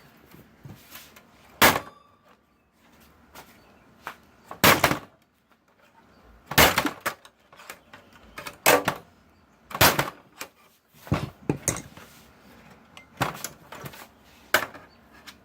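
Repeated sharp metallic knocks as a computer case is worked apart, about ten strikes spaced a second or two apart.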